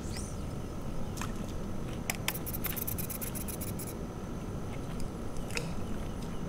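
Spinning fishing reel being cranked: a quick run of fine, even clicks for about a second and a half near the middle, with a few single clicks before and after, over a steady low rumble.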